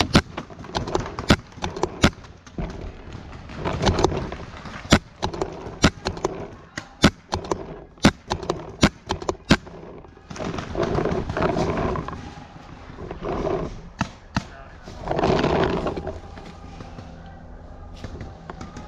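Paintball markers firing: a string of sharp single cracks at irregular intervals, roughly one every half second to a second, through the first half. Several longer stretches of noise follow in the second half.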